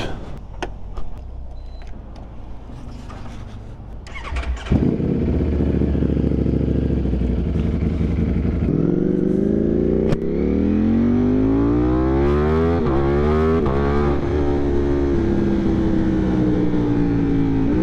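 Ducati Streetfighter V4's V4 engine starting abruptly about five seconds in, after a few clicks, and idling briefly. It then revs up as the bike pulls away, the pitch climbing with two brief breaks for gear changes, and settles into a steady cruise.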